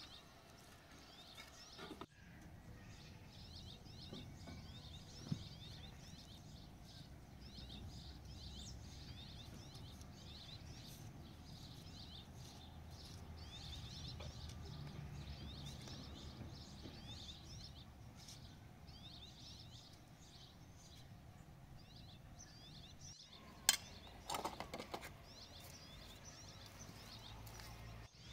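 Many small birds chirping and calling in the trees, over a low steady outdoor rumble. Near the end come a few sharp clicks and knocks.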